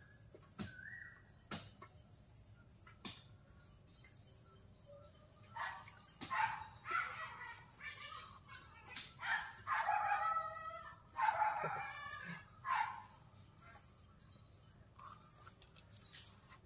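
Several birds calling: quick high chirps repeat throughout, with louder, lower-pitched calls in the middle stretch.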